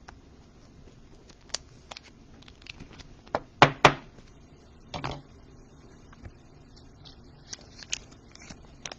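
Trading cards in plastic sleeves and rigid toploaders being handled: scattered light plastic clicks and taps, with two sharper clicks close together a little before the middle and a short rustle just after.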